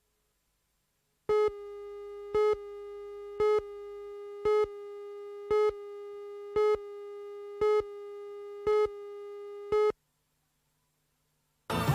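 Videotape countdown leader tone: a steady electronic beep tone that jumps louder once a second, nine times, then cuts off abruptly. Music starts just at the end.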